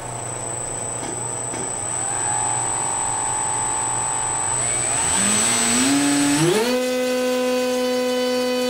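1800 KV NTM Prop Drive brushless motor spinning a 7.5-inch propeller through a long drive shaft extension on small ball bearings: a high steady whine over a growing rush of air. About five seconds in the hum climbs in a few steps and then holds at a steady higher pitch.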